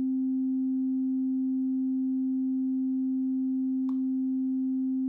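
Software subtractive synthesizer (Reason SubTractor) holding a note after the key is released: the amplitude release is at maximum, so the note sustains, and the filter envelope's release has closed the low-pass filter down, leaving a steady, almost pure tone with faint overtones.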